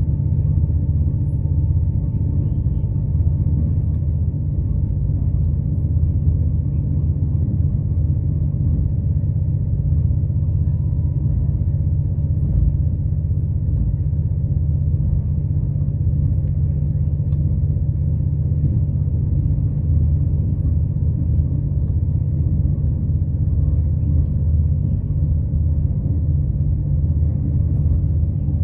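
Steady low rumble of an Irish Rail passenger train running along the line, heard from inside the carriage.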